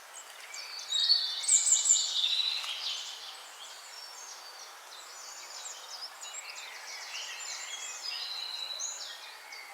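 Songbirds chirping and trilling over a faint hiss, with a louder burst of twittering about a second in.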